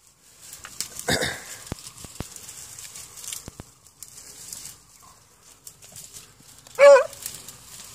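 A rabbit-hunting dog gives one short, wavering bay near the end. Before it, brush rustles and scattered twigs snap as someone pushes through the undergrowth.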